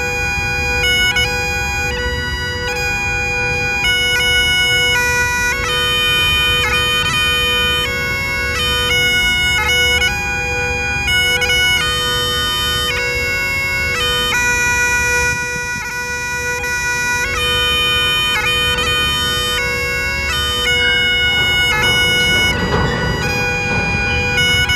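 Bagpipes playing a tune: a changing chanter melody over a steady drone. A low rumble runs underneath from a freight train rolling past.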